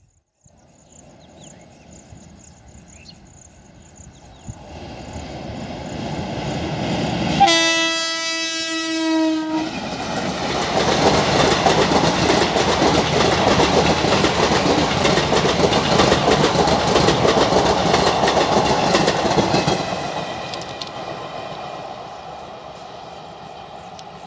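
Indian Railways WAP-4 electric locomotive approaching and sounding one horn blast of about two seconds. The passenger train then passes, loud, with wheels clicking over the rail joints, before it fades away.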